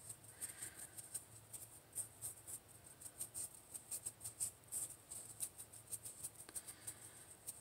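Faint, irregular light ticks and scratches of a small paintbrush dabbing alcohol ink onto a smooth painted rock, over a faint low hum.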